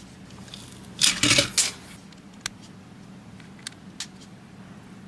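LEGO plastic pieces being handled: a short burst of rattling and clicking about a second in, then three sharp single clicks as pieces are pressed together.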